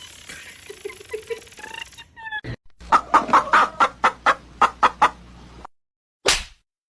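Fowl clucking: a rapid run of about a dozen short, loud calls, about four a second, that stops suddenly; one short call follows after a pause.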